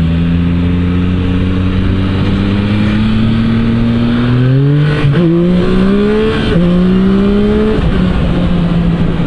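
Yamaha MT-09 SP's three-cylinder engine with an Akrapovič exhaust, pulling under acceleration with its revs climbing. The climb steepens about halfway through, with two quick upshifts, then the engine drops to a steady pitch near the end, over wind noise.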